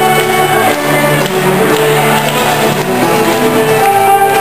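Live ceilidh band playing a polka set for country dancing.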